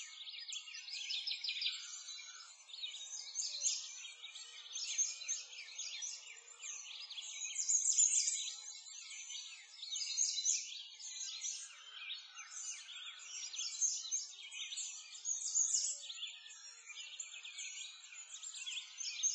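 Many birds chirping and singing at once, a dense chorus of quick high chirps and trills with no pause.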